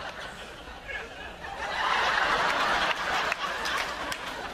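Studio audience laughing, the laughter swelling about two seconds in.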